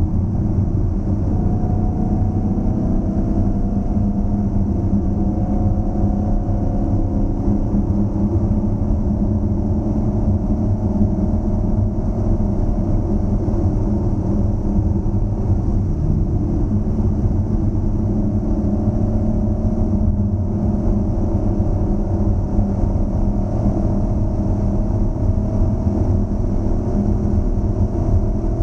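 2013 Dodge Challenger SRT8's 6.4-litre HEMI V8 running at a steady cruise, a low drone whose pitch drifts gently up and down.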